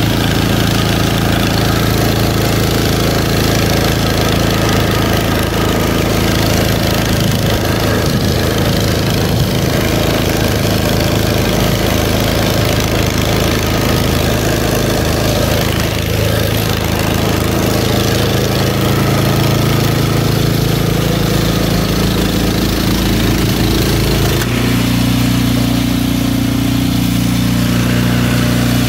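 Simplicity S1227 two-stage snow blower running steadily under load while its auger and impeller chew through deep snow and throw it from the chute. The engine note shifts higher near the end.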